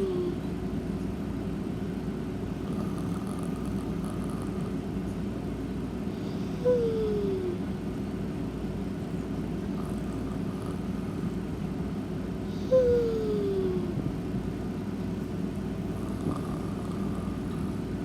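Sleeping cat snoring: a short, pitched, downward-gliding squeak on the breath, heard three times about six seconds apart, over a steady low hum.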